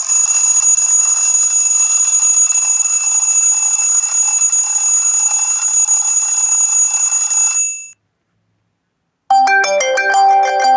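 Honor 7A EMUI built-in phone tone: a steady, shimmering rushing texture with two high held tones, running for about eight seconds and then fading out. After about a second of silence, a plucked melody of quick separate notes begins near the end, the next built-in tone.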